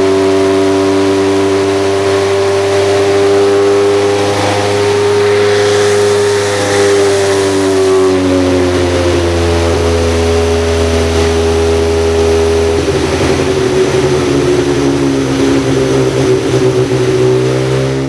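BMW M12 Formula 2 inline-four racing engine in a BMW 2002 Group 5 hillclimb car, revving hard on a chassis dynamometer. The loud engine note holds fairly level, sags slightly in the middle, then changes tone about 13 seconds in.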